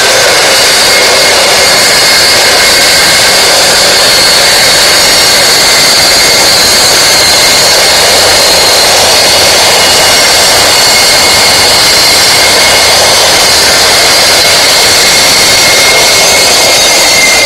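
Circular saw running under load as it cuts a shallow dado in wood, a loud, steady motor whine over the rasp of the blade. At the very end the trigger is let go and the blade starts to wind down.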